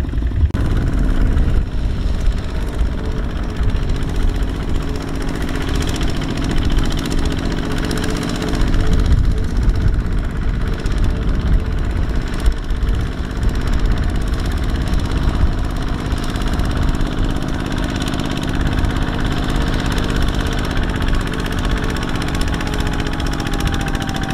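Single-cylinder diesel engine of a Kubota two-wheel walking tractor running steadily while hauling a loaded trailer.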